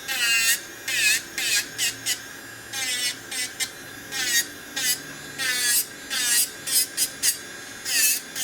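Yafex electric nail drill (e-file) filing gel polish off a nail: short grinding strokes, roughly two a second, the drill's pitch dipping and recovering as the bit presses on the nail and lifts off.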